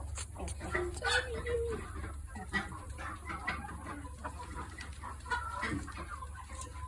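Chickens clucking, with many short calls and one longer call about a second in.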